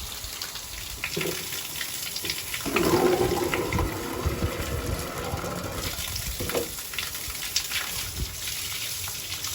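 Water gushing and splashing steadily from an outdoor shower, heavier for a couple of seconds about three seconds in.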